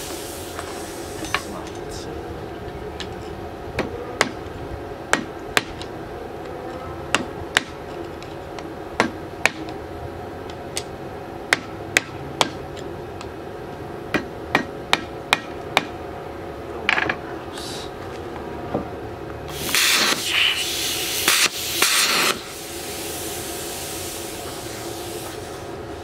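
Hammer blows ringing on steel, about twenty sharp irregular strikes, driving a chisel against the ground-down pulley of a 1969 Cadillac Eldorado's seized air-conditioning compressor to knock it off. Toward the end come a few bursts of hissing noise, over a steady hum.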